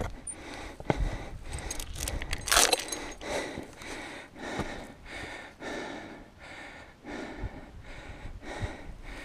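A climber's heavy panting, quick and even at about two breaths a second. A little over two seconds in comes a brief metallic jangle, which fits the fixed iron chain on the rock face clinking.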